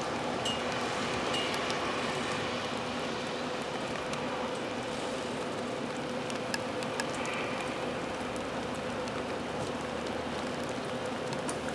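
Steady rain falling, with scattered drop ticks and a low steady hum underneath.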